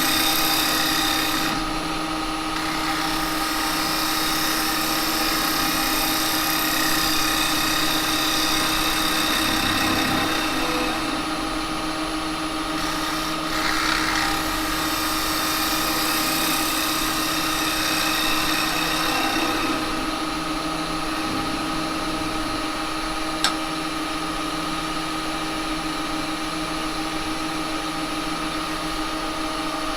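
Axminster 1628 wood lathe running with a steady motor whine while a 6 mm carbide cutter takes a continuous cut in cherry wood, the hiss of the cut swelling and easing. A single sharp tick about two-thirds of the way through.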